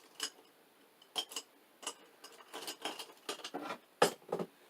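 Small plastic and glass makeup items being handled and set down: a run of light clicks and taps, with a louder knock about four seconds in.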